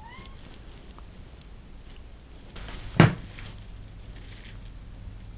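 Quiet room tone broken by one sharp click about three seconds in, with a short faint rising tone at the very start and a fainter tick about a second in.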